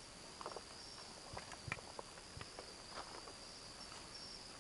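Crickets or similar insects trilling steadily on one high pitch, with a few faint scattered clicks and knocks.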